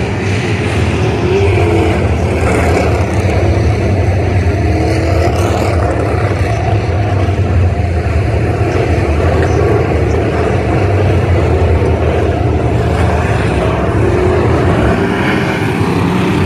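A field of figure-8 race cars running together on a short oval track. Many engines sound at once in a loud, steady din, with single cars rising and falling in pitch as they accelerate and lift.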